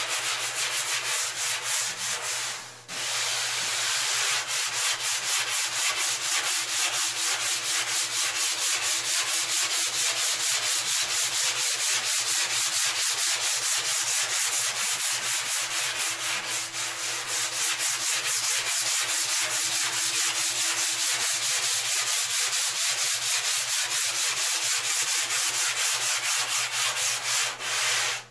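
Hand sanding block rubbed quickly back and forth along the rail of a foam surfboard blank, a rasping scrape in even strokes a few times a second, with a short pause about three seconds in.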